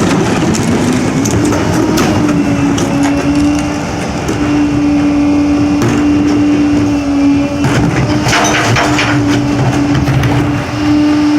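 Pak-Mor rear-loader garbage truck compacting heavy trash: the engine is held at raised revs to drive the packer hydraulics, giving a steady hum that climbs slightly at the start. Over it come cracks and bangs of bulky items breaking in the hopper, bunched together about eight seconds in.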